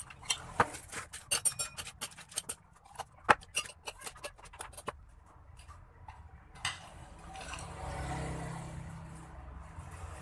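Cut sections of plastic PVC pipe clicking and clacking as they are handled and fitted together, a quick run of sharp knocks over the first five seconds. From about two-thirds in, a steady low rumble rises and stays.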